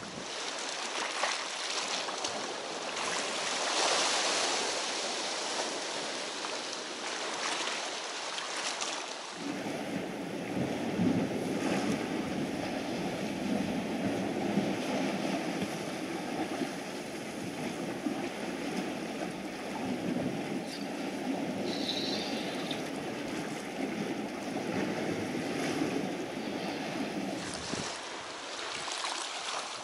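Sea waves washing against shore rocks, with wind on the microphone. The wash turns suddenly deeper about nine seconds in and returns to a lighter hiss near the end.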